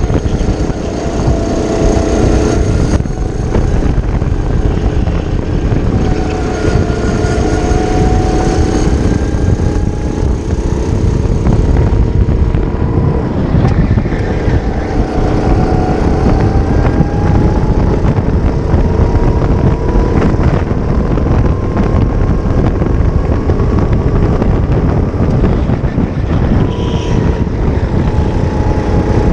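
Onboard sound of a racing kart's Briggs & Stratton LO206 four-stroke engine at race pace, its pitch climbing slowly as it accelerates and dropping back as the driver lifts for corners, several times over. Heavy wind and rumble noise on the onboard microphone runs underneath.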